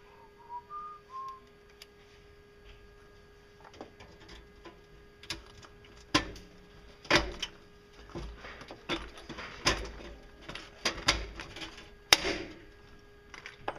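Long-handled hand riveter setting a pop rivet in sheet metal: irregular clicks and clacks as the jaws are fitted and the lever handles worked, ending in a sharp snap about twelve seconds in as the rivet's mandrel breaks off.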